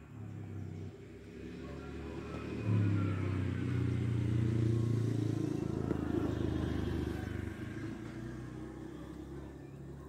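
A motor vehicle engine passing by: a low engine hum that swells about three seconds in, holds for a few seconds, then fades away.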